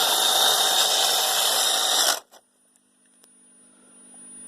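Roomba brush motor whirring during the diagnostic's brush stall test, with the brushes being stalled by hand; it cuts off abruptly about two seconds in, leaving only a faint, steady high whine.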